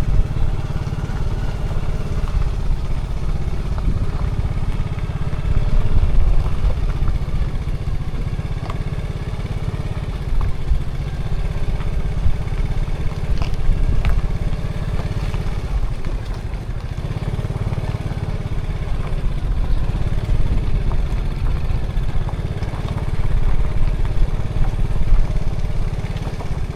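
Steady engine and road rumble heard from inside a moving car, with a few faint clicks.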